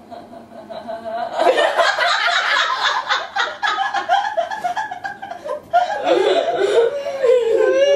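Two women laughing together. Quiet at first, it breaks into loud, open laughter about a second and a half in, stops briefly just before six seconds, then starts again.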